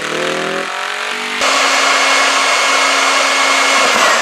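A custom motorcycle's engine revving with its pitch rising during a rear-tyre burnout, then dropping away. About a second and a half in, a power tool starts running loud and steady with a high whine, which begins to wind down and fall in pitch near the end.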